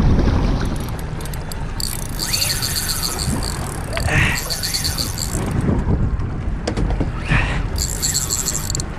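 Fishing reel being cranked in short runs of rapid, even ticking, over a steady low rumble of wind and boat noise.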